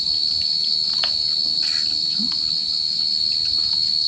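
Insects trilling steadily at a high pitch, a continuous finely pulsing chorus, with a few faint clicks over it.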